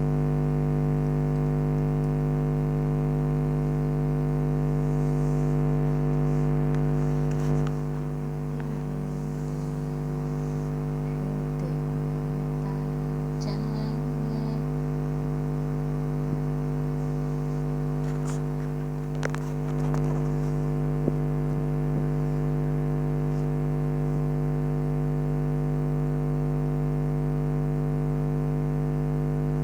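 A steady electrical hum made of several constant tones, with a few faint clicks and taps.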